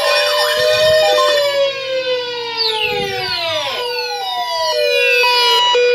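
Electronic siren-like alert tones: several wailing tones overlap, sliding down and up in pitch, mixed with steady beeping tones that switch on and off.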